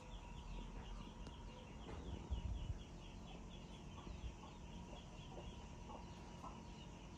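Faint, rapid bird-like chirping: a steady run of short, falling high chirps, about five a second, with a few low thumps a little over two seconds in.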